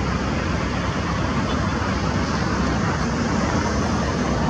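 Steady, even rumble and hiss of outdoor background noise, with no distinct events.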